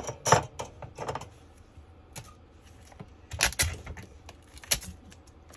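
Sharp clicks and taps of a laptop RAM module being handled over the opened laptop base: a few clicks just after the start and about a second in, then a cluster around three and a half to five seconds in.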